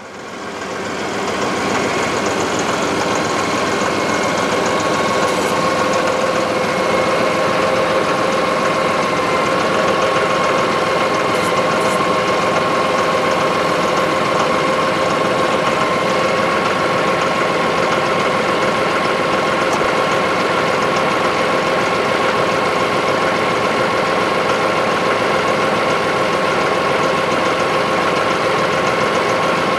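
Mahindra tractor's diesel engine running steadily at a constant speed, with a steady whine over the engine note. It fades in over the first second or two.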